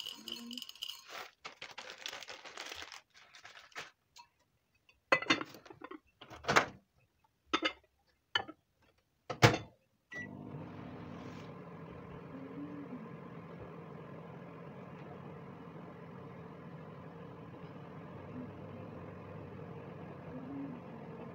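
Rattling handling noise and several sharp clicks and knocks, then a microwave oven starts about halfway through and runs with a steady hum.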